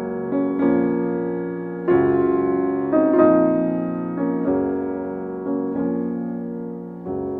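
Background piano music: slow chords struck about once a second or so, each left to fade before the next.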